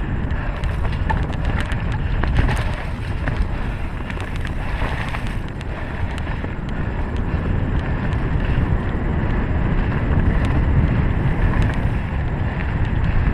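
Mountain bike riding a dirt trail: a steady rumble of wind on the microphone and tyre noise, with scattered small clicks and rattles from the bike.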